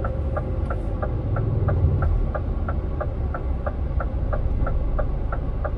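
Turn-signal indicator of a Scania R450 truck ticking steadily in the cab, about three short ticks a second, over the low rumble of the diesel engine.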